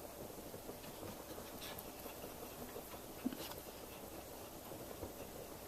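A dog's claws scratching and pawing faintly and irregularly at the floor and couch, trying to reach a toy underneath, with a short knock about three seconds in.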